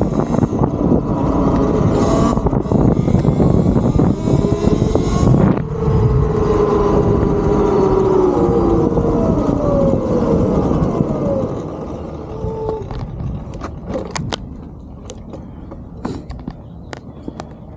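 Talaria Sting MX4 electric dirt bike riding: wind on the microphone and tyre noise, with the motor's whine falling in pitch as the bike slows. About twelve seconds in it goes quieter as the bike comes to a stop, leaving scattered clicks.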